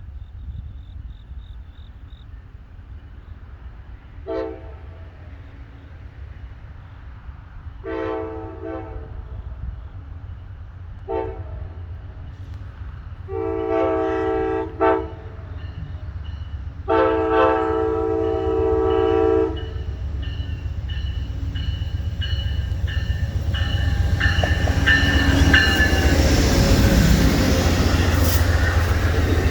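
Amtrak passenger train's locomotive horn sounding five blasts, each several notes together: short, long, short, long, and a final longest blast. After the last blast the train's rumble and wheel clatter build steadily and grow loudest near the end as it draws close.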